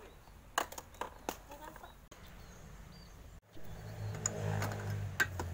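Hands handling a Honda scooter, giving a few sharp clicks, and then twisting open the fuel tank cap under its seat, with more clicks over a steady low hum.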